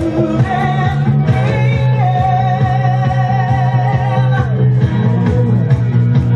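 A woman singing live into a handheld microphone over loud hi-NRG disco backing music with a steady beat and heavy bass, all through a PA system. About two seconds in she holds one long note with vibrato.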